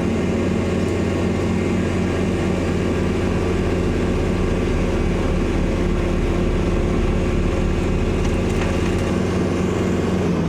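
Kubota compact tractor's diesel engine running steadily under load, driving a tractor-mounted snowblower as it clears snow.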